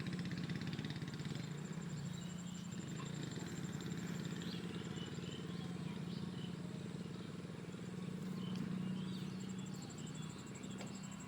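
A small engine running steadily at an even speed, with faint bird chirps over it.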